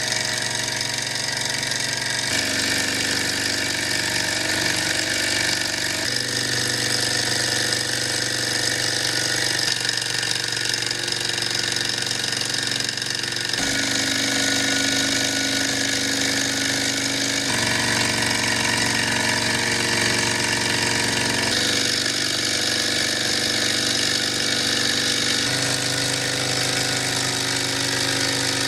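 Small homemade alpha-type Stirling hot-air engines running fast with a steady mechanical whirr and rattle. The pitch steps to a new level every few seconds.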